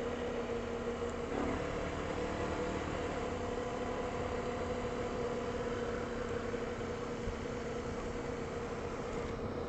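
Honda ATV's single-cylinder four-stroke engine running steadily at low, even speed on a gravel road, with a brief shift in engine note about a second and a half in.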